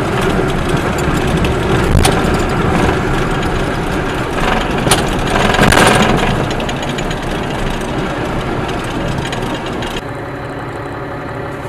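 Diesel truck engine of an M142 HIMARS running steadily, heard from inside the cab, with a few sharp clicks and a brief louder rush of noise about six seconds in.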